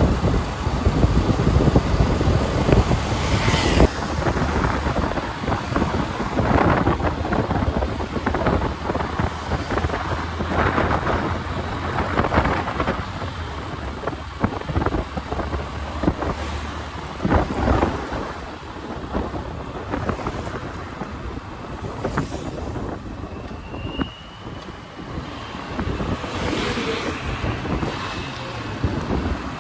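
Wind buffeting the microphone of a moving motorcycle, rumbling unevenly over the bike's engine running underneath.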